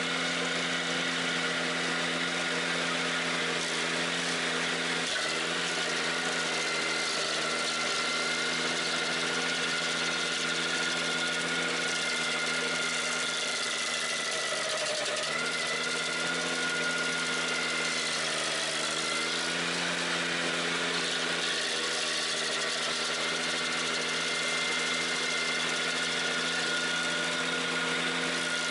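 Ventrac 4520Z tractor's engine running steadily, driving a KC180 stump grinder cutter wheel as it grinds into a tree stump. The engine note dips briefly a few times as the wheel bites into the wood.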